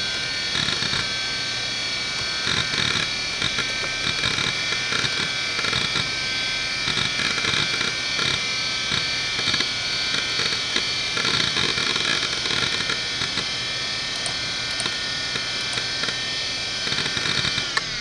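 Conner Peripherals CFS850A 3.5-inch hard drive (two platters, 3600 RPM) spinning with a loud, steady whine, overlaid with irregular bursts of head-seek chatter and clicks as the drive is read and written by the operating system.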